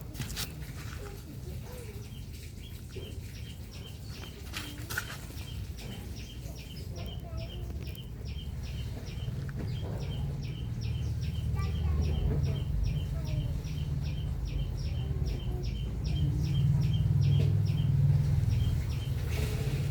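A steady series of short high chirps, two or three a second, over a low rumble that grows louder in the second half.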